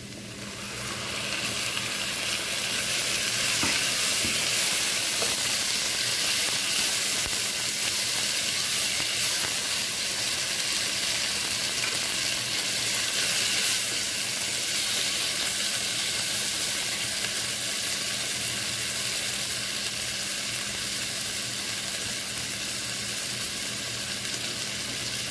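Chopped tomatoes sizzling in hot oil over fried onions and ginger-garlic paste in a pan. The sizzle swells about a second in and then holds steady.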